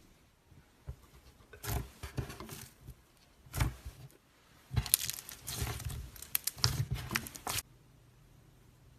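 Slime being squished and pulled by hand, giving spells of sticky crackling and popping clicks. There are three spells, the last and longest cutting off abruptly about three-quarters of the way through.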